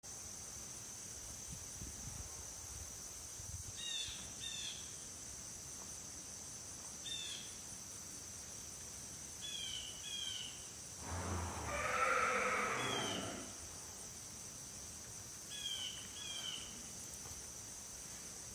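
A steady high insect drone runs throughout, while a bird calls a short pair of falling chirps every few seconds. About eleven seconds in, a louder rushing sound lasts about two seconds.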